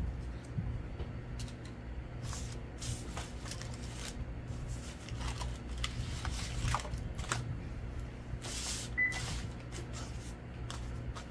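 Paper and card stock being handled: scattered short rustles and light taps, with a longer rustle about three quarters of the way through, over a steady low hum.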